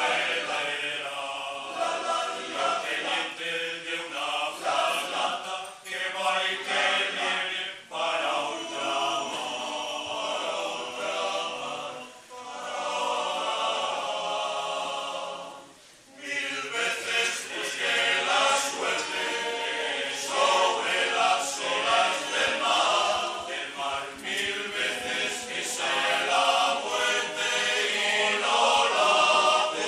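Male-voice choir singing a cappella, with a short break between phrases about halfway through.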